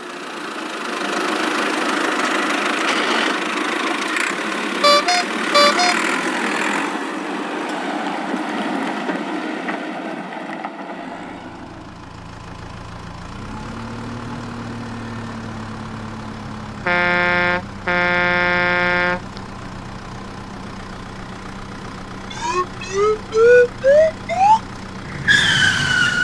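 Cartoon vehicle sound effects: a rumbling engine for the first dozen seconds with a few short beeps, then a lower engine hum, two horn honks about a second apart, and a quick series of about six rising zip-like chirps. Music starts just before the end.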